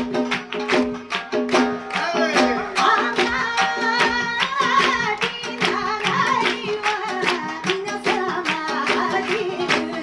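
Live flamenco and Japanese folk music played together: steady rhythmic hand clapping (palmas), about four claps a second, over plucked shamisen and guitar. From about two seconds in, a high, wavering singing voice carries the melody.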